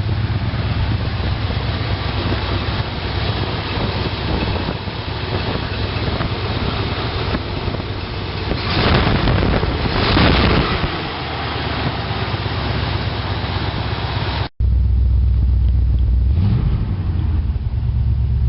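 Chevrolet 350 small-block V8 with a Holley 650 four-barrel carburetor running at idle. It grows louder twice in the middle, as if lightly revved. After a sudden cut it idles on, heavier in the low end, with one short blip of the throttle.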